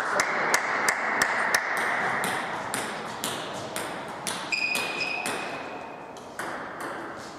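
Table tennis balls ticking against table and bats: quick and regular for the first second and a half, then sparser and fainter, over a steady hall hum. A short, steady high tone sounds for about two seconds near the middle.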